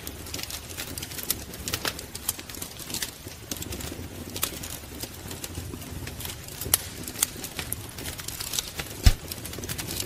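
Wood fire crackling: irregular sharp pops and snaps over a low steady rumble of flames, with one louder pop about nine seconds in.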